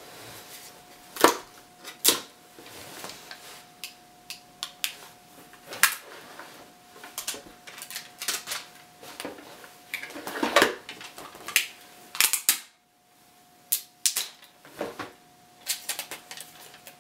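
Irregular plastic clicks, knocks and rattles as the battery cover of an APC Back-UPS CS 500 is taken off and its battery and yellow battery label are handled.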